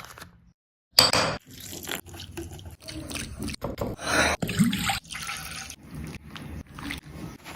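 Liquid pouring and splashing, with short irregular knocks, starting suddenly about a second in after a brief silence.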